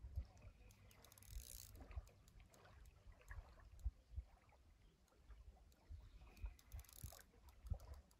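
Near silence: faint, uneven low thumps and rumble, with two brief soft hisses, about a second in and again about seven seconds in.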